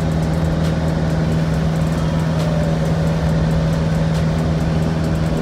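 Small two-seat fabric-covered Piper's engine and propeller droning steadily in climbing flight, loud and unchanging with a strong low hum.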